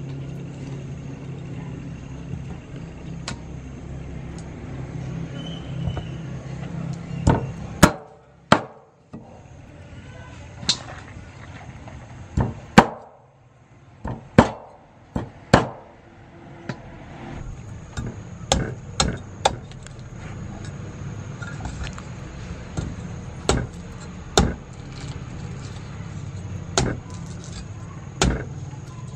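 Meat cleaver chopping raw chicken on a thick round wooden chopping block: sharp, irregular strikes, some single and some in quick pairs, over a steady low hum. Near the end the blade hacks into a green coconut.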